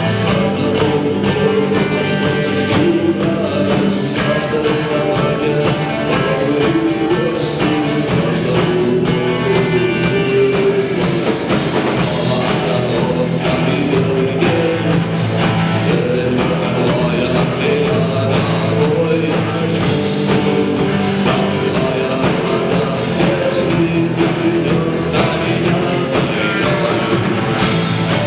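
Rock band playing live: electric guitar melody over bass and a steady drum-kit beat, an instrumental passage with no singing.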